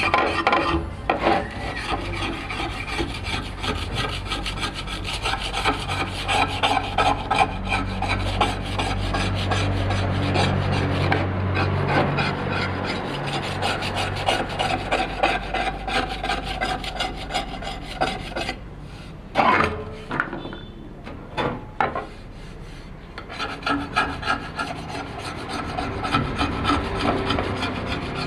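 Rapid rasping, rubbing strokes of abrasive hand work, with a pause about two-thirds of the way through that holds a few loud knocks.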